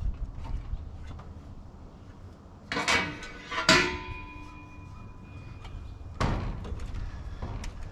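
Steel parts clanking together in handling: two loud knocks close together about three seconds in, the second leaving a metallic ring that hangs for about two seconds, then another knock a little after six seconds.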